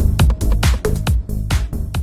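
Electronic dance music with a fast, steady beat, playing as a channel intro jingle.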